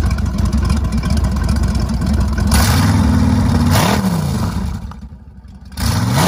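Boat's sterndrive engine running with a steady low exhaust rumble, blipped up and back down a little past halfway and again near the end, with a brief quieter dip between the two revs.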